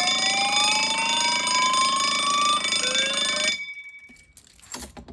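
Fire alarm panel in alarm: a wired alarm bell ringing together with electronic sounders, one of them sounding a slow rising sweep tone, certainly loud. It all cuts off suddenly about three and a half seconds in, followed by a few faint clicks. The installer suspects the bell is wired wrong or not meant for this panel.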